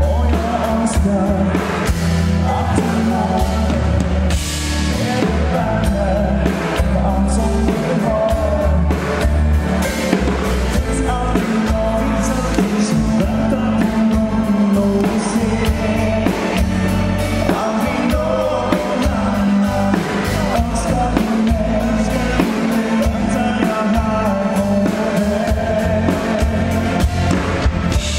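A live pop band playing a song with a steady beat: a male lead singer over guitar, keyboard and drum kit.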